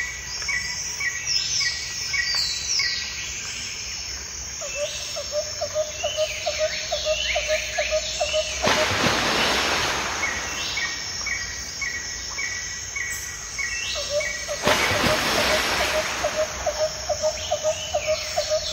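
Garden birds singing and chirping, with runs of rapidly repeated notes. Twice, a rushing noise swells for about a second over the birdsong.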